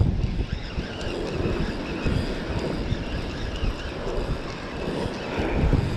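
Wind buffeting the microphone over the wash of ocean surf.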